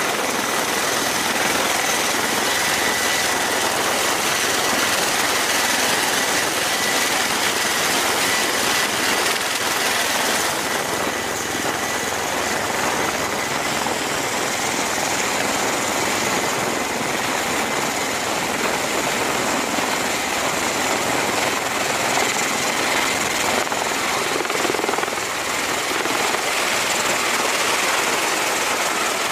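CMV-22B Osprey tiltrotor's two turboshaft engines and proprotors running at high power, a loud steady rotor and turbine noise as it lifts off the deck and climbs away. A thin high whine sits over it for the first ten seconds or so, then fades.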